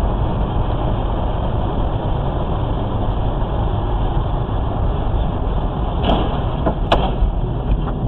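Steady rumble of road and engine noise from a car driving on a wet highway, picked up inside the cabin by a dashcam microphone, with two sharp knocks about six and seven seconds in.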